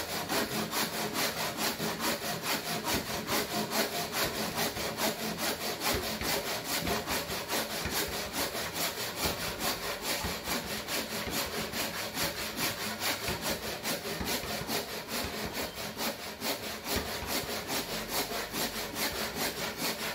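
D-Xplore Teflon-coated hand saw cutting across a wooden beam in a steady, even rhythm of back-and-forth strokes, the teeth rubbing through the wood on each stroke.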